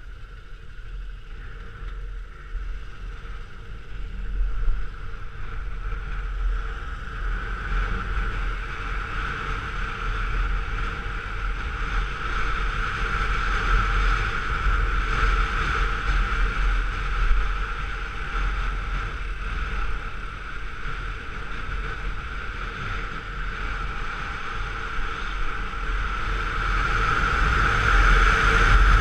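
Honda VTZ 250's V-twin engine running as the motorcycle rides along, with wind rushing over the microphone. The sound grows louder over the stretch, most of all near the end.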